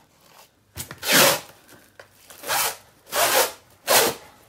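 Plastic cling wrap being pulled off its roll and stretched over a plastic bowl, in about five separate pulls, the loudest just over a second in.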